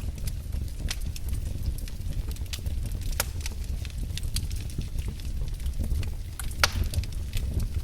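Wood fire crackling in a fireplace: irregular sharp pops and snaps over a low, steady rumble of the flames, with one louder pop late on.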